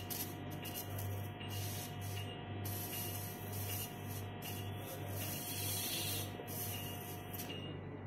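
Electrosurgical (diathermy) pencil cutting tissue: a steady electronic activation tone with a hissing sizzle that comes and goes as the tip touches tissue. Both stop together near the end.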